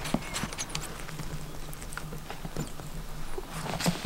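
Pet rabbit's paws pattering and scuffling on a rug as it hops and turns close to the microphone: a string of soft, irregular clicks, one louder just before the end, over a steady low hum.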